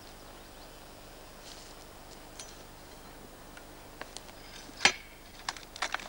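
Near-quiet ground noise, then from about four seconds in a handful of short, sharp clicks and knocks, the loudest shortly before five seconds, as a tree planter steps and tamps the soil around a freshly planted seedling with his boot among dry burnt twigs.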